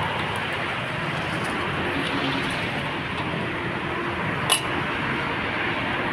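Chapli kababs frying in a wide pan of hot oil: a steady sizzle, with light street traffic behind it. One sharp metal clink, the spatula against the pan, about two-thirds of the way in.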